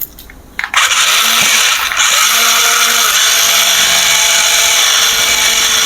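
Small electric motor and plastic gearbox of a remote-control toy vehicle, switching on about a second in and then running steadily with a high whine. A couple of short tones sound over it soon after it starts.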